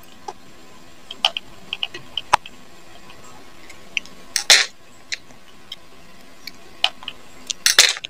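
Small scattered clicks and light clinks from a cordless hair clipper's replacement switch, wires and plastic housing being handled during assembly, with two brief louder rustles, one about halfway through and one near the end.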